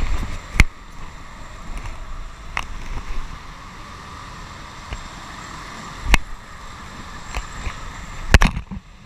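A go-kart running on an indoor track gives a steady rushing noise, broken by several sharp knocks, the loudest cluster near the end.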